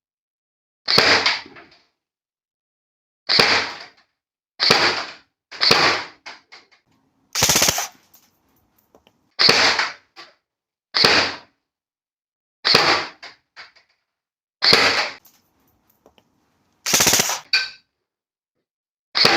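Classic Army Nemesis double-barrel M4 airsoft rifle firing single shots through a chronograph: about ten sharp shots, one every one to two seconds, each trailed by a few faint ticks.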